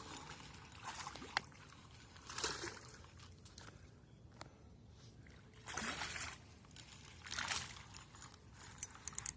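Short bursts of water splashing and dripping, four or five times, from a freshly landed largemouth bass at the water's edge.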